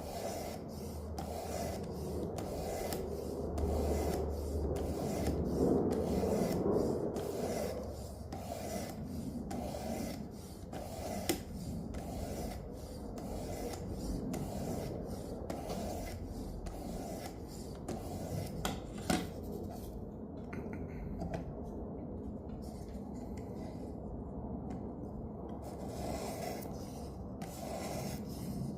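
Knife blade drawn over the abrasive of a Work Sharp manual knife sharpener, rasping in steady repeated strokes about twice a second, with two sharp clicks midway. The passes are refining the edge on the 320 grit before finishing on the ceramic.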